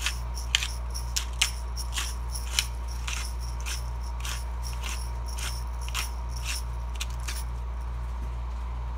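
Pepper grinder being twisted by hand, a crunching click about twice a second as the peppercorns are cracked, over a steady low hum.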